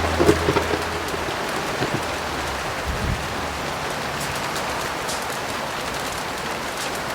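Steady heavy rain hissing, with a few light crackling clicks and the last low piano note dying away in the first second.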